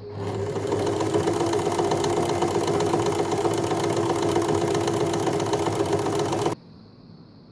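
Empisal Dressmaker 270D sewing machine running steadily, sewing a decorative pattern stitch at a very short stitch length with rapid, even needle strokes. It starts just after the beginning and stops abruptly near the end.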